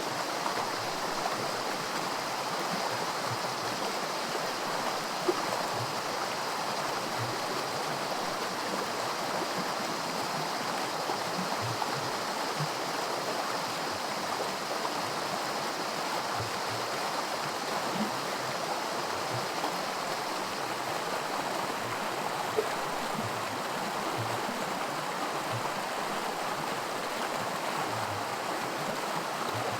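Small creek rushing over rocks in miniature white water: a steady wash of running water, with a couple of brief sharper splashes, one about five seconds in and one past twenty seconds.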